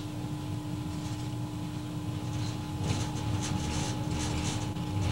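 Cab interior of an EMD GF6C electric locomotive under way on a curve: a steady low rumble with a constant hum. About three seconds in, a run of rattling clicks joins it.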